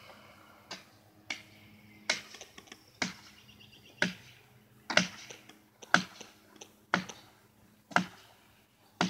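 Hammer blows driving a felling wedge into the cut of a tree, struck at a steady pace of about one a second and getting louder as they go.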